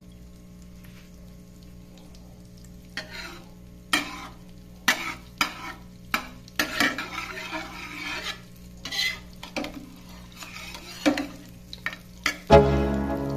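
A kitchen utensil stirring in a pan or bowl, with irregular sharp clinks and scrapes against the side, over a low steady hum. Background music comes in near the end.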